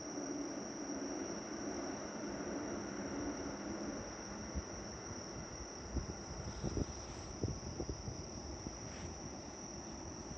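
Steady high-pitched trilling of night insects, with a few soft knocks near the middle from the phone being handled.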